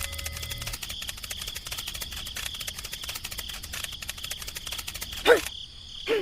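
Dense rapid clicking with a steady high-pitched hum, like an outdoor insect chorus, and two short animal calls that sweep up and down near the end.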